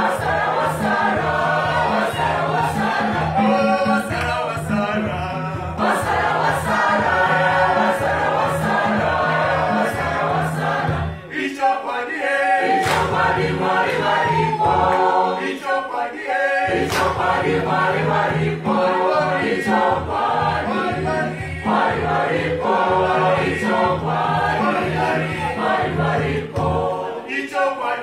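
Church choir singing a South African gospel song in several voices, with rhythmic hand clapping. The low voices drop out briefly twice near the middle.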